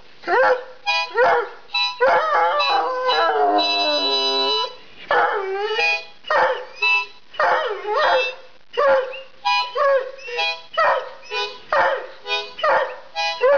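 Hound dog howling along with music in a run of short, pitch-bending yowls, about two a second. A longer held chord of the music sounds about four seconds in, with the dog's voice sliding under it.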